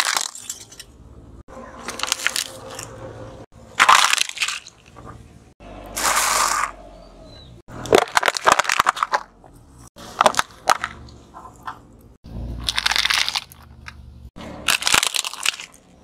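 A car tyre rolling over and crushing a series of plastic objects such as bowls and toys, with cracking and crunching in about seven separate bouts that each start and stop abruptly.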